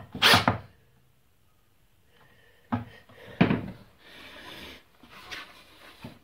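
A cordless drill in a short burst finishing driving a screw into a plywood board, then sharp knocks and scraping as the board is lifted and handled on the table saw top.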